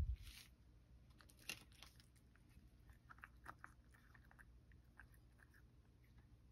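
A cat chewing soft boiled carrot topped with bonito flakes: faint, scattered small wet chewing clicks.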